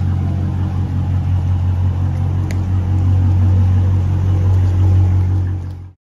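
Dodge Charger's 5.7-litre Hemi V8 running steadily with a deep exhaust rumble, cutting off suddenly near the end.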